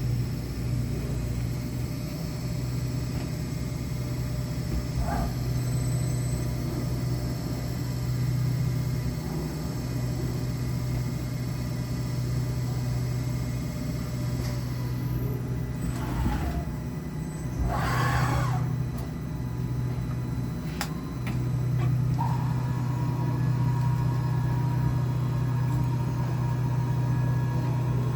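Schneeberger Gemini CNC tool and cutter grinder running: a steady low hum with several constant high whines. Two short hissing rushes come about 16 and 18 seconds in, the second one louder.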